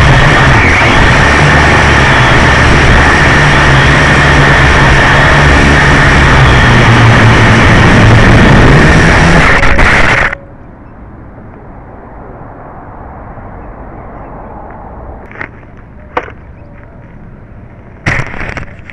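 Syma X1 toy quadcopter's electric motors and propellers whining loudly close to the onboard microphone, with a steady high tone. About ten seconds in, the craft crashes into grass and the motors cut out abruptly: the crash has knocked the battery loose. A quiet hiss follows with a couple of sharp clicks, then handling noise near the end as the craft is picked up.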